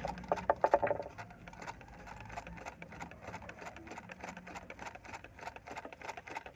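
Straight-stitch sewing machine stitching through cotton cloth: a quick, even run of needle-stroke ticks, louder in the first second. It is a test seam at a lengthened stitch setting, the regulator having just been set to four.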